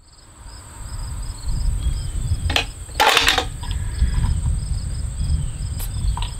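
Outdoor ambience: insects chirping in a steady pulsing trill over an uneven low rumble, with a short sharp noise about three seconds in.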